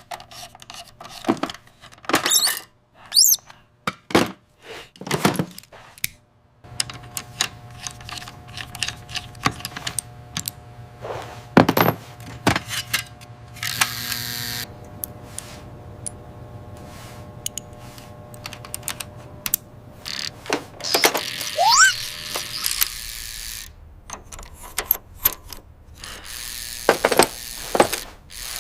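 A string of workshop sound effects for robot-building: sharp metallic clicks, clanks and knocks with short whooshes, a low steady hum through the middle, a hissing burst about fourteen seconds in, and a rising whistle-like glide a little past twenty seconds.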